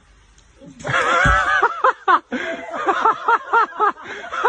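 A person laughing in a quick run of short, rhythmic bursts, starting about a second in.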